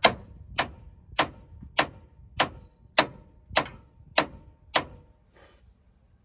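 Steady hammer blows on steel, nine in all, each with a short metallic ring, stopping about five seconds in. The hammering is meant to shake a stuck tie rod loose.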